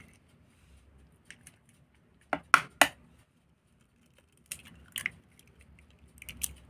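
Egg cracked against the rim of a mixing bowl: three sharp taps a little over two seconds in, then softer clicks and crackle as the shell is broken open.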